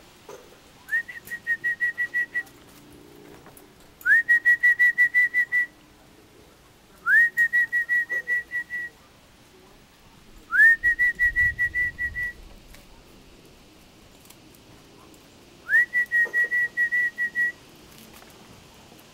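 Loud whistling in five phrases, a few seconds apart. Each phrase opens with a quick upward slide and then runs into a fast string of short notes at one steady pitch, about six a second, lasting a second and a half to two seconds.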